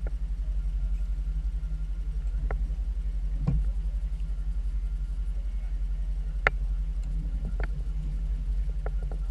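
Small outboard motor idling steadily with a fast, even low throb. A few sharp clicks or knocks stand out now and then.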